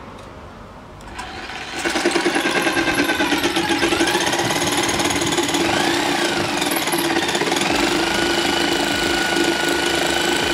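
Corded jigsaw cutting through a wooden plank. It builds up over the first couple of seconds, then runs steadily with a fast, even chatter from the blade's strokes.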